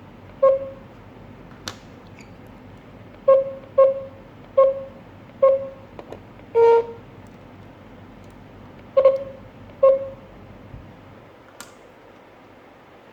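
Short beeps from a GSM alarm system's control panel, all at the same pitch: one, then four in quick succession, a slightly longer one, then two more. A couple of faint clicks fall in between.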